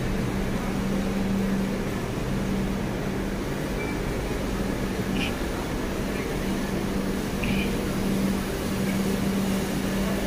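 Steady machinery hum from a passenger train beside the platform, holding one low tone, with no wheel clatter. A few faint short high chirps sound over it.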